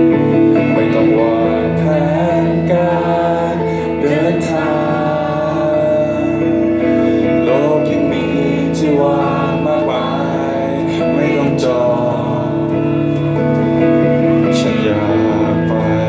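Live rock band playing a song: a male lead vocal sung over electric guitar and drums, with a few cymbal strikes.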